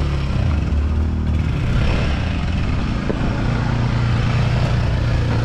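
Small ATV (quad bike) engine running at low speed, a steady low drone whose pitch rises a little partway through as the throttle opens.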